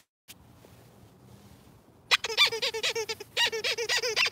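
Squeaker in a plush snake dog toy squeaking in a quick run of short, high squeaks as a golden retriever puppy bites and tugs at it. The squeaks start about halfway through and pause briefly once.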